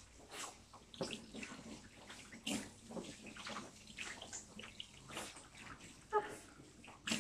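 Water from a hand-held hose sprayer splashing over a beagle's coat and into a plastic tub, in irregular splashes and trickles.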